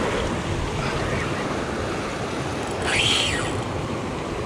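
Sea surf washing over and breaking among shoreline rocks, a steady rushing with a brief louder surge about three seconds in.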